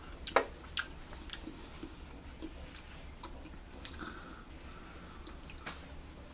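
A few sharp clicks and soft handling noises over quiet room tone, the loudest about half a second in, as kebab skewers are lifted off a foil pan and held up.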